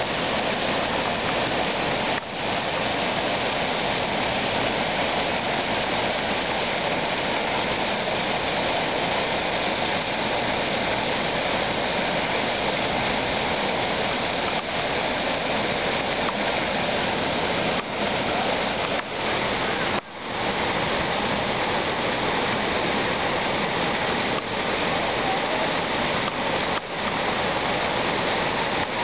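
Steady rush of water pouring and splashing from a water park splash structure: streams falling from overhead and ground jets spraying up, with a few brief dips, the deepest about two seconds in and near twenty seconds in.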